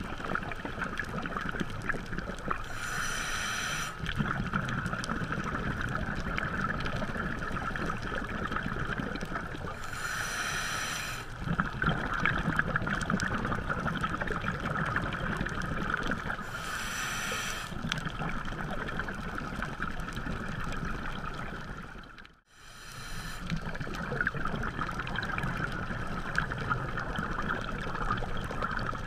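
A scuba diver's regulator breathing heard underwater: four inhales, each a short hiss about every six to seven seconds, with bubbling exhales between them over a steady underwater hum.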